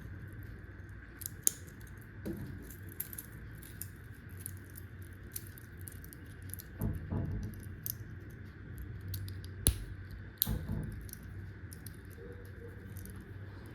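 Light metallic clicks and clinks of a stainless-steel dive watch and its link bracelet being handled, with a few sharper clicks about a second and a half in and again around ten seconds in, over a faint steady background hum.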